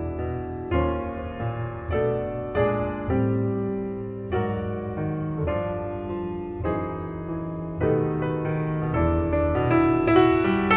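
Background piano music with held chords and a slowly moving melody.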